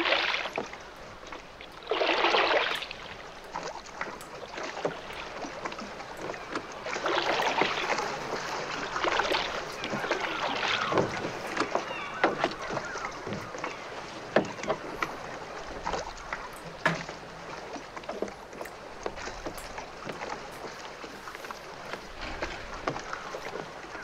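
Film soundtrack of a small boat being rowed or paddled: irregular oar splashes and water sloshing, with the strongest splash about two seconds in and scattered sharp clicks.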